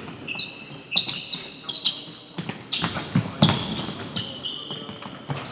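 Basketball dribbled repeatedly on an indoor court floor, mixed with short high squeaks of sneakers on the floor as players cut and defend.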